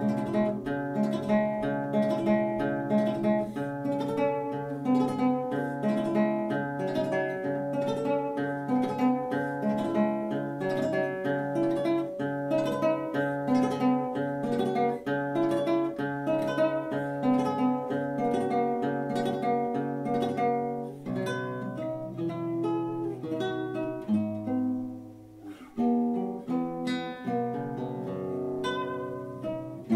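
Nylon-string classical guitar fingerpicked: a steady flow of quick plucked notes over a repeating low bass note, thinning out briefly about 25 seconds in before picking up again.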